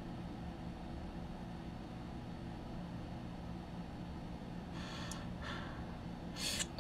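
A person's short, sharp breaths, three in quick succession near the end, over a steady low hum. The breathing comes with the strain of pushing a metal taper through a stretched septum piercing.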